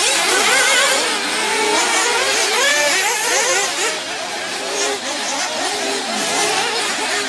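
Several RC off-road buggies racing together, their small high-revving engines rising and falling in pitch over one another as they accelerate and brake around the track.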